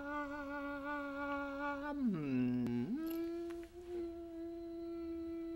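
A person humming long held notes: a slightly wavering note slides down to a low pitch about two seconds in, then jumps up to a higher note and holds it steady.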